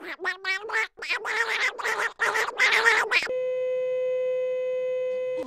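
Squawking, quacking vocal sounds for about three seconds, then a steady electronic beep held at one pitch for about two seconds, cutting off abruptly.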